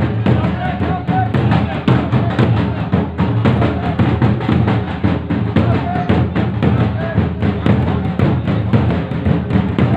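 Loud, fast, dense drumming, heavy in the low end, with crowd voices beneath.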